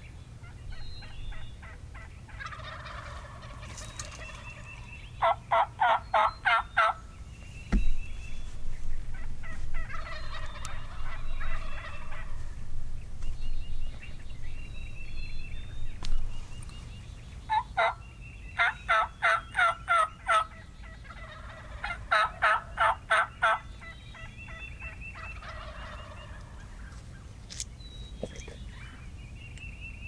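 Rio Grande wild turkey toms gobbling: loud rattling gobbles about five seconds in and twice more after the halfway mark, with fainter gobbles in between and a few small songbird chirps.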